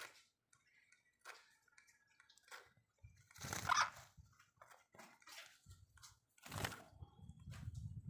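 Parakeets bathing in a shallow bowl of water, with scattered splashes and wing flutters. The loudest bursts come about three and a half seconds in and again near seven seconds, and a bird flaps its wings close by near the end.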